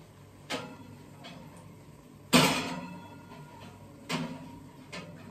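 Clunks and clatters of dishes and kitchenware being handled: four knocks, the loudest a sharp one a little past the middle with a short ringing tail, over a low steady hum.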